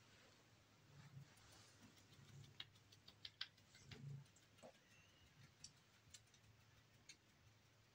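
Near silence: room tone with a few faint, scattered clicks and soft rustles.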